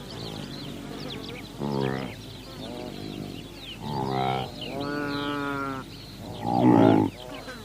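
An animal calling repeatedly: about four pitched, bleat-like calls, the longest held for about a second near the middle, over a steady background of short high chirps.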